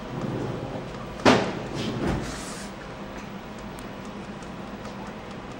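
A single sudden, sharp sound about a second in, followed by a brief rustle, over steady room hum.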